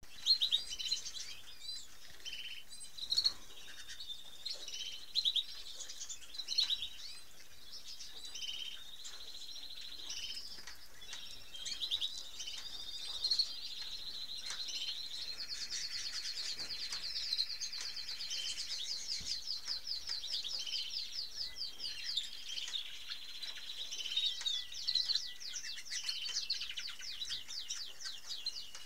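Red-factor canaries singing: a continuous run of high chirps and warbling phrases, with a long, fast trill from about fifteen to twenty-two seconds in.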